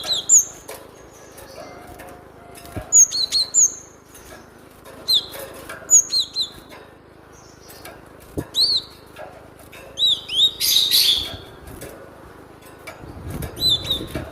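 Cinereous tit (gelatik batu) calling: short, high, arched chirps in twos and threes every second or two. About ten seconds in there is a brief harsh noisy burst, and faint clicks run throughout.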